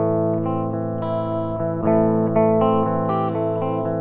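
Electric guitar played through an amp cabinet and miked close at the speaker, with a clean tone. It plays picked notes and chords whose pitches change every few tenths of a second.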